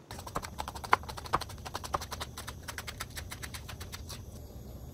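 Chef's knife rapidly chopping green onions on a plastic cutting board: a quick run of sharp taps, several a second, easing off near the end.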